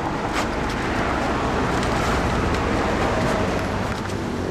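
A boat's engine running steadily under way: an even drone with a rushing noise over it and a few light knocks.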